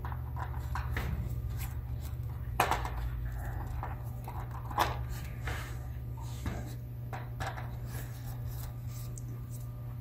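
Small clicks and scrapes of a screwdriver turning out screws from a laptop's plastic chassis, a few sharper ticks among them, over a steady low hum.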